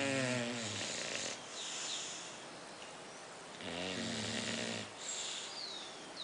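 Sleeping English bulldog puppies snoring: two loud snores, each about a second long and nearly four seconds apart, with softer breaths between. The snoring is typical of the breed's short, flat-faced airway.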